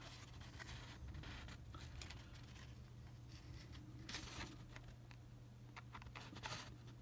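Faint rustling and scraping of a printed decal sheet handled in the fingers, a few brief strokes, over a steady low hum.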